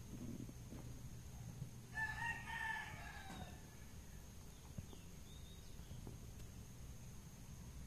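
A rooster crowing once, a single call of about a second and a half that drops in pitch at the end.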